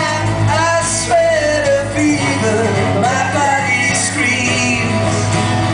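Live rock band playing: a male lead vocal over strummed acoustic guitars and drums, amplified through a PA at steady loud volume.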